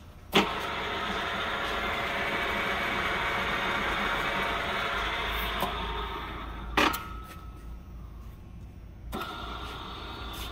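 King Kong Iron Works KUD-540 drill press switched on with a sharp click at its control panel, its motor and spindle drive running with a steady whir for about five seconds before winding down. A second sharp click comes a little past the middle, and the drill press starts again about a second before the end, running more quietly.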